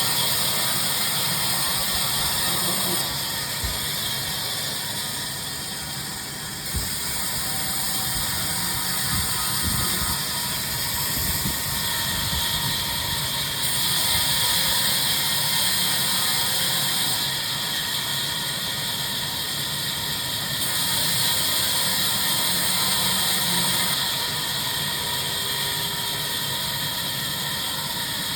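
Sawmill machinery cutting timber: steady mechanical running with a strong high hiss, shifting in level and tone every few seconds, with a few brief knocks in the first third.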